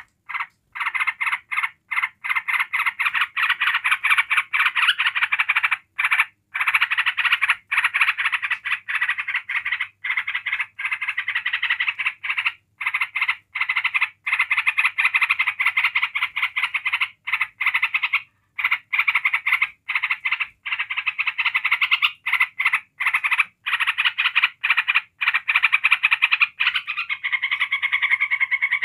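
Yellow-vented bulbul giving a long, near-unbroken rattling chatter ('ngebren'), fast repeated notes with brief breaks every second or so, turning smoother near the end.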